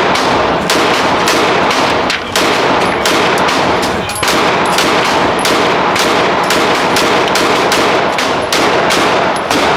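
Pistol gunfire at a shooting range: a rapid, loud string of shots, several a second and overlapping, with brief lulls about two and four seconds in.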